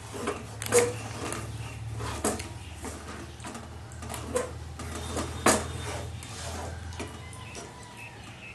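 Chicken pieces being stirred in a pan of thick yogurt-based gravy, a utensil scraping and knocking sharply against the pan several times, over a low steady hum.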